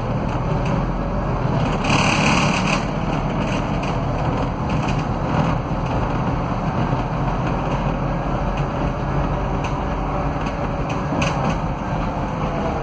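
Scania DC09 five-cylinder diesel engine and hub-reduction rear axle of an articulated city bus, heard from inside the passenger cabin: a steady low drone with a faint gear whine. A short hiss comes about two seconds in, and a few light rattles come later.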